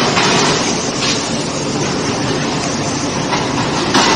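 Loud, steady running noise of forging machinery, with three sharp metal knocks: one at the start, one about a second in and one near the end, around the electric screw forging press as a red-hot workpiece is brought to its die.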